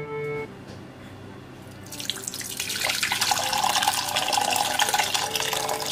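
Rasam, a thin South Indian soup, poured into a glass bowl: a splashing pour of liquid that starts about two seconds in and grows louder.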